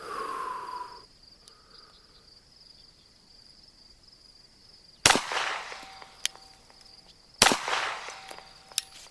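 Two 9mm pistol shots from a Glock 34, about two and a half seconds apart, each with a long echoing tail. Crickets trill steadily underneath.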